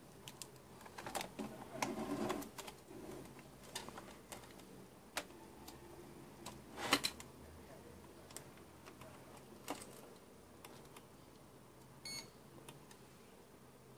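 Scattered clicks and knocks of a plastic robot vacuum and its loose wires being handled on a workbench, the loudest about seven seconds in. A short electronic beep about twelve seconds in.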